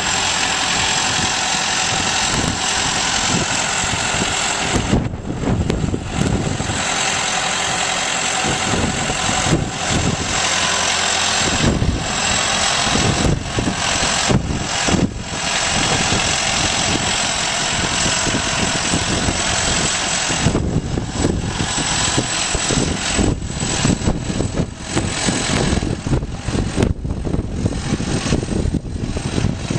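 Heavy farm machinery's diesel engine running steadily at harvest, with a thin steady high whine above it. Irregular knocks and bumps break into the sound more often in the second half.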